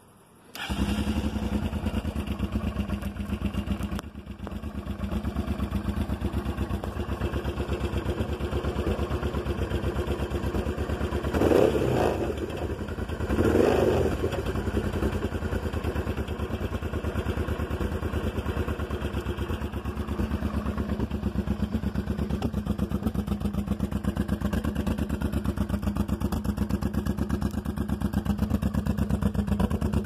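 Honda Transalp's V-twin motorcycle engine starting about half a second in and settling into an even, pulsing idle, with two quick throttle blips about halfway through.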